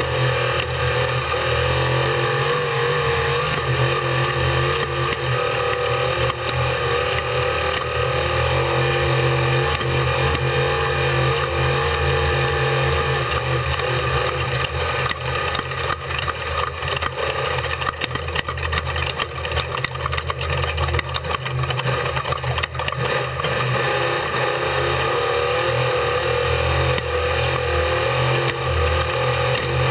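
Unlimited Truck desert race truck engine running hard at speed, heard from on board, with a busy patch of rattles and knocks through the middle.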